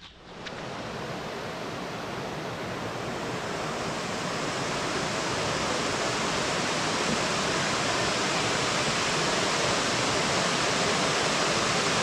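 Water rushing steadily over a small waterfall and rocky creek ledges, an even rush that fades in over the first few seconds.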